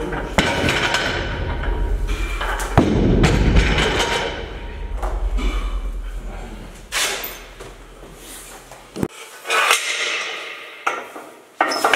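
A heavy deadlift barbell loaded with bumper plates is set down onto the platform with a thud about three seconds in. Scattered knocks and metal clanks of the bar and a deadlift jack follow.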